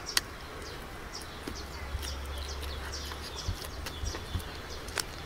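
Birds chirping steadily, with a low steady hum underneath. Two sharp lip smacks from eating a braised goose leg, one just after the start and one near the end.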